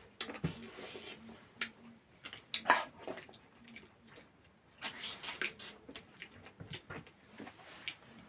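Close-miked eating sounds: irregular wet chewing and mouth smacks from someone eating chicken curry with rice, with the loudest smack about two and a half seconds in and a burst of chewing around five seconds in.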